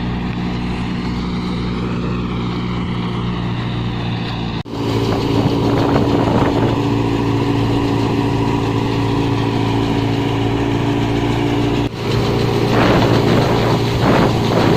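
Engine running steadily at a constant speed, typical of a tractor-driven wheat thresher at work. The sound drops out abruptly twice and runs a little louder after the first break.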